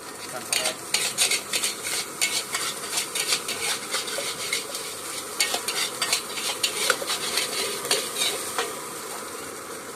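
A metal spatula clanking and scraping against a wok in quick, irregular strokes as fried rice is stirred, over a frying sizzle; the strokes stop near the end.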